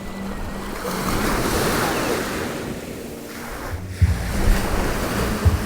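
Surf breaking and washing up the beach. From about four seconds in, wind buffets the microphone with low rumbling and a few sharp thumps.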